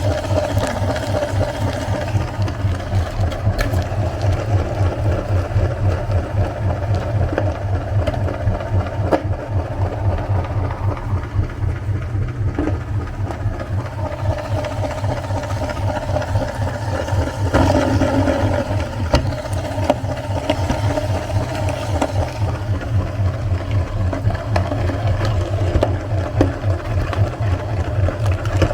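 Electric meat grinder running steadily, its motor giving a fast, even buzz.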